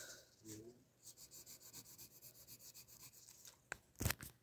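Graphite pencil shading on paper: quick back-and-forth scratching strokes, about six or seven a second. A single thump about four seconds in.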